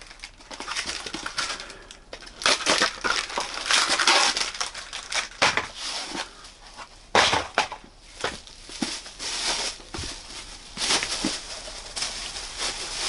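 Cardboard book mailer being cut and torn open by hand: irregular rustling, ripping and crushing of the cardboard, with a few sharp cracks.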